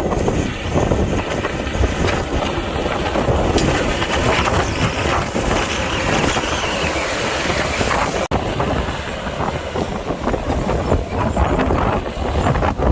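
Mini excavator's diesel engine running under work, heavily buffeted by wind on the microphone. It drops out for an instant a little past the middle.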